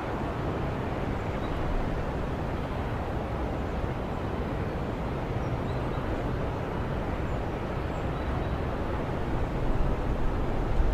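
Steady low outdoor rumble, a field-recording background with no distinct events.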